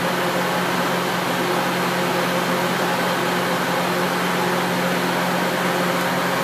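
KOMO VR 1205TT Mark II twin-head CNC router running without cutting: a steady machine hum under an even hiss that does not change.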